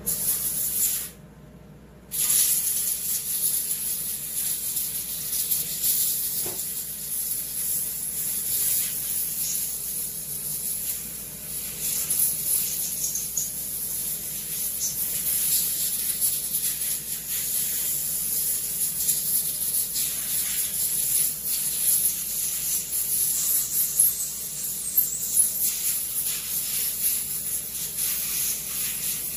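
Steady hiss of compressed air from an air blow gun cleaning off chainsaw parts, stopping briefly about a second in.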